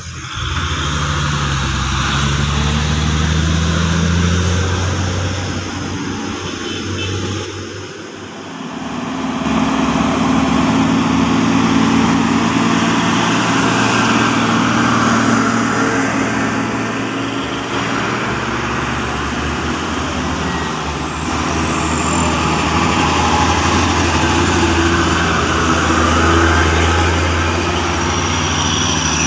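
Heavy diesel trucks driving past close by, one after another, with engines running and tyre noise on the road. The sound eases briefly about eight seconds in, then builds again as the next truck comes.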